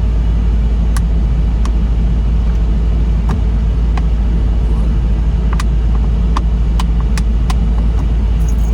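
Steady low rumble of a car, with scattered small clicks over it.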